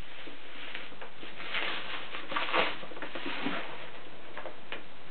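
Faint rustling and tapping of a cardboard figurine box and its packaging being handled and opened, a few scattered small clicks over a steady background hiss.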